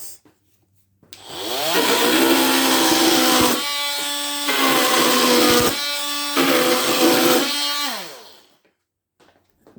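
Ryobi P343 18-volt brushed oscillating multi-tool on its top speed setting, making three cuts through wood trim. It spins up with a rising buzz, goes noisier and harsher during each cut with a cleaner buzz between them, then winds down with a falling pitch when switched off.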